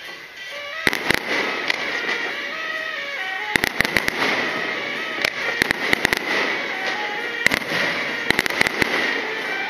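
Aerial fireworks going off in rapid volleys of sharp bangs and crackles, starting about a second in and coming thick and fast from the middle on, with music playing underneath.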